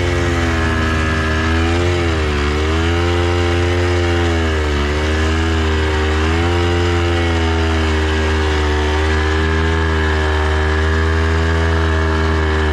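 Japanese enduro motorcycle's engine running hard under load while climbing a steep dirt hill. The revs dip briefly about two seconds in and again around five seconds in, then pick back up.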